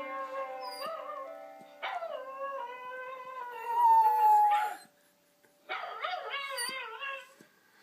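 Dog howling along to a piano: wavering howls over held chords struck just before the start, about two seconds in and near six seconds, with one long howl that swells loudest around four seconds, a short pause, then a last shorter howl.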